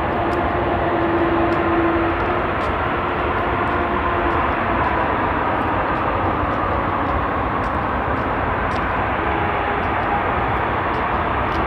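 Airbus A330-300 jet airliner's engines on its arrival, a loud, steady rushing noise with a faint whine in it that is strongest in the first two seconds.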